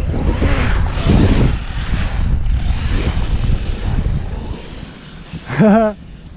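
Wind buffeting the microphone, with the high whine of electric RC monster trucks' brushless motors running through snow. A short wavering tone near the end.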